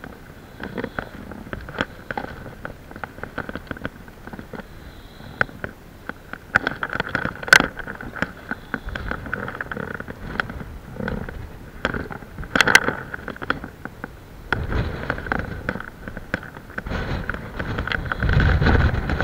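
Wind gusting on the microphone, with low rumbling gusts in the second half and the strongest near the end, and scattered sharp clicks and knocks throughout.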